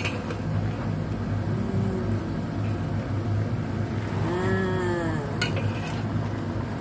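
A steady low mechanical hum in the kitchen under the simmering wok, with a brief hummed voice tone about four seconds in and a metal spatula clinking once against the wok about five seconds in.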